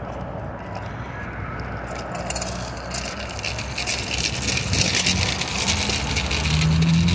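Street traffic: a motor vehicle engine runs with a steady low hum, and road noise grows louder over the last few seconds. A brief steady low tone comes near the end.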